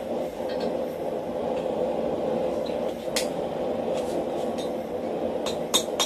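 Steady rushing roar of a blacksmith's forge, with a hammer striking iron on the anvil once about three seconds in and then a quick run of ringing blows near the end.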